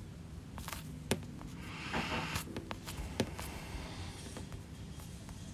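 Quiet room with two small sharp clicks, about two seconds apart, and a brief soft rustle between them.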